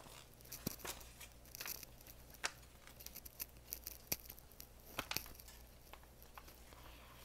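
Paper pages of a hardcover comic book being flipped by hand: faint, irregular rustles and sharp paper flicks.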